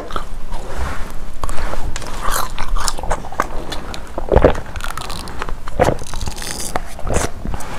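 Close-miked wet mouth sounds of sucking a red drink from the tip of a large plastic syringe: irregular slurps, smacks and sharp little clicks.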